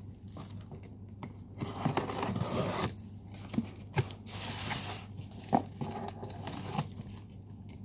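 Packing tape being pulled and torn off a cardboard box in several pulls of about a second each, with a few knocks of the cardboard between them.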